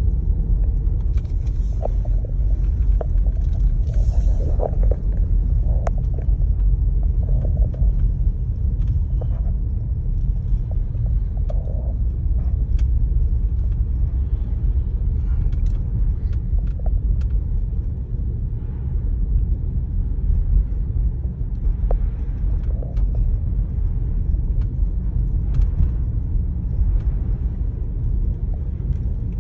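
Steady low rumble inside the cabin of a moving 2019 Jeep Grand Cherokee on snow-covered road: tyre and road noise with the engine underneath. A few faint clicks are scattered through it.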